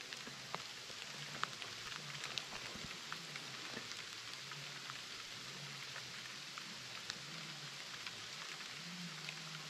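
Hail falling through the trees and onto the brush and ground: a steady hiss dotted with many small sharp ticks of pellets landing.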